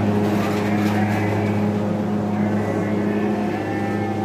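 A steady engine drone, with cattle mooing in the barn during the second half.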